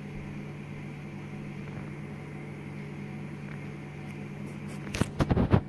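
Steady low hum with faint room noise, then a quick cluster of sharp knocks and scrapes near the end.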